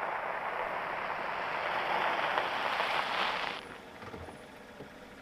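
A steady rushing hiss with no pitch to it. It swells a little, then cuts off abruptly a little over halfway through, leaving a quieter background with a few faint ticks.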